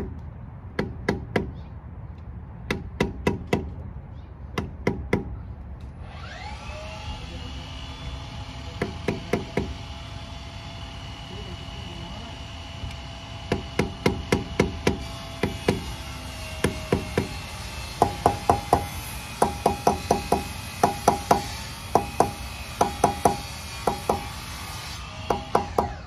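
A hammer tapping the sheet-metal grease dust cap into a front wheel hub, in short runs of quick, light metal knocks around its edge as it is seated. A steady hiss with a faint whine runs underneath from about six seconds in until near the end.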